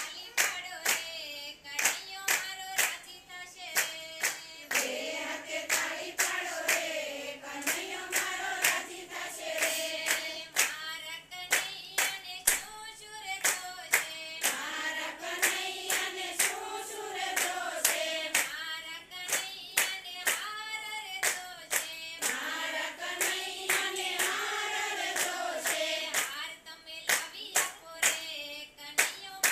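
A group of women singing a Gujarati devotional kirtan together in unison, clapping their hands to a steady beat. The sharp claps stand out above the voices.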